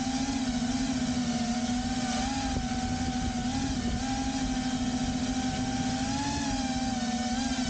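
Quadcopter drone's electric motors and propellers buzzing steadily in flight, heard up close from a camera mounted on the drone itself. The pitch swells slightly a few times as the throttle changes.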